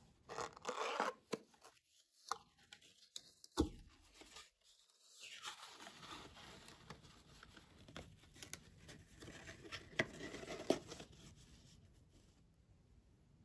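Cardboard display box being opened by hand: the lid tearing loose and scraping, with rustling and a few sharp clicks and taps as the cardboard is folded back.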